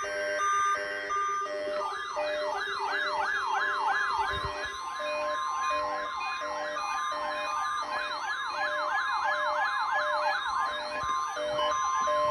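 NOAA weather radio receivers sounding their alert alarms during a Required Weekly Test. Beeping alert tones are joined about two seconds in by a rapid siren-like warble, rising and falling about three times a second. Under it runs a steady tone, the broadcast's 1050 Hz warning alarm tone.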